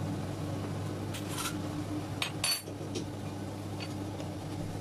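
Kitchen handling sounds: a few light clinks and taps of a peanut butter jar and utensils at a bowl, the sharpest about halfway through, over a steady low hum.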